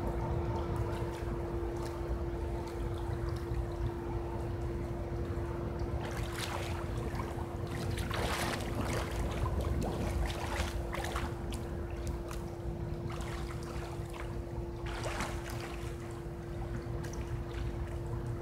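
Swimming strokes splashing in a pool, a run of splashes from about six seconds in that eases off near the end, over a constant low rumble and a steady hum.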